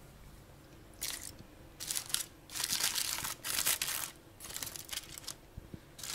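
Aluminium foil crinkling in a series of short bursts as it is pulled open by hand around a baked corn cob.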